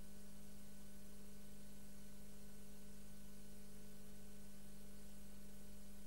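Steady low electrical hum with an even hiss: the recording's background noise, with no other sound.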